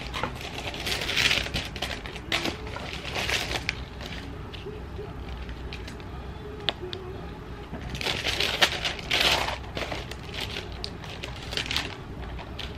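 Packaging being unwrapped by hand: paper and cardboard rustling and crinkling in irregular bursts, with scattered small clicks. The bursts are loudest about a second in and again around eight to nine seconds in.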